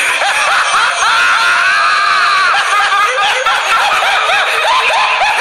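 A man's frenzied, contemptuous laughter: a long high cry, then a run of short rising-and-falling laughs, over a steady hiss.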